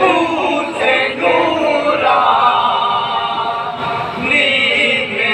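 An all-male anjuman chorus chanting an Urdu devotional kalam together, unaccompanied, amplified through stand microphones.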